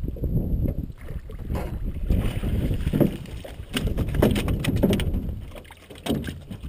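Low rumble of wind and water around a small aluminum boat, broken by a series of sharp knocks and thumps on the aluminum as a freshly landed walleye flops on the boat floor.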